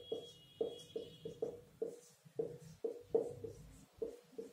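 Marker pen tapping and dragging on a whiteboard as letters are written: a run of short, irregular taps, each ringing briefly off the board.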